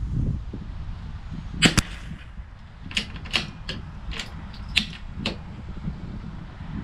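Sharp rimfire rifle shots: one loud crack about a second and a half in, with a second crack right behind it, then a string of six lighter cracks roughly half a second apart.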